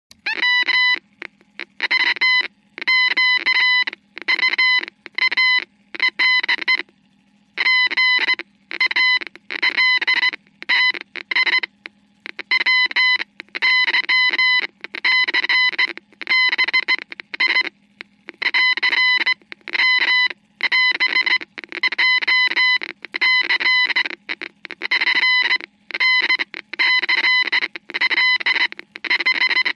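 Morse code played back as a beeping tone keyed on and off in quick dots and dashes, grouped with short gaps and a longer pause about seven seconds in. A faint, steady low hum runs underneath.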